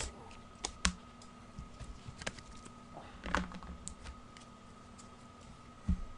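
Trading cards being handled and set down on a table: scattered light clicks and taps, with a low thump near the end.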